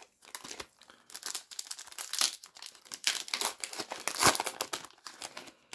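A foil booster pack of trading cards crinkling and tearing as it is opened by hand: a run of irregular crackles, the sharpest about four seconds in.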